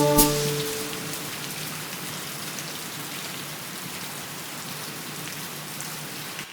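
Steady rain falling, an even hiss with scattered drops, as the last held notes of music die away in the first half second. The rain cuts off abruptly near the end.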